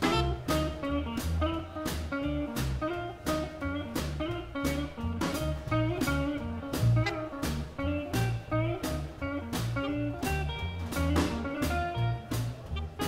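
Live blues band playing an instrumental passage: electric guitar and bass over a steady drum beat, with saxophone.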